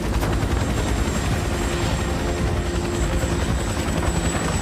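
Helicopter in flight: steady rotor chop and engine noise with a thin high whine running through it.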